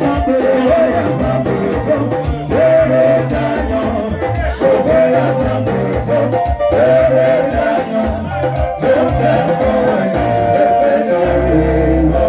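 Male voices singing a gospel song live through microphones over a Yamaha keyboard accompaniment with a bass line and a steady beat. Near the end the keyboard settles onto a long held low chord.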